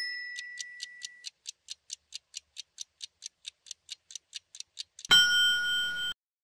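Countdown timer sound effect: a chime rings away over the first second while rapid clock ticks run at about five a second, then a loud buzzer tone about five seconds in lasts about a second and cuts off, signalling time's up.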